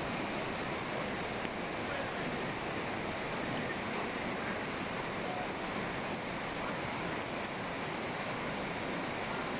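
Brown floodwater flowing across a street, a steady even rush of water.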